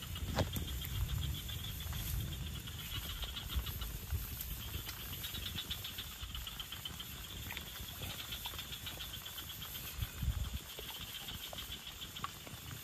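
Insects chirping in rapid pulsed trills that come and go, over a low rumble with scattered clicks and a few low thumps, the loudest about ten seconds in.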